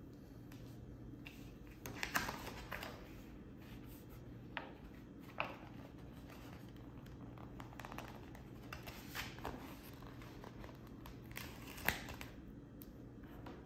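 Paper sticker sheets rustling and crinkling as they are handled and lifted, in short scattered bursts, the loudest about two seconds in and near the end.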